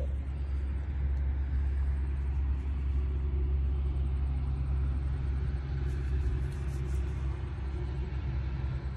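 Steady low rumble of wind across the phone's microphone, with no clear separate events.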